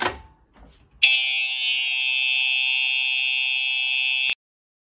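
Simplex TrueAlert horn strobe sounding a loud, steady continuous horn tone for about three seconds. It starts sharply about a second in, after a few light clicks, and cuts off abruptly.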